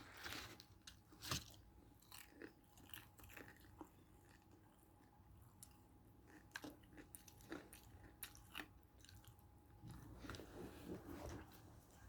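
Quiet chewing with scattered small crunches, a person eating chicken close to the microphone.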